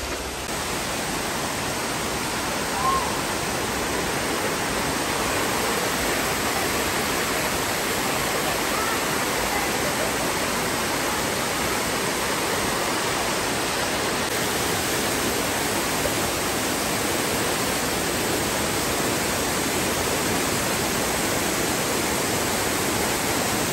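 Dunn's River Falls: water cascading over limestone terraces into shallow pools, a steady, dense rush.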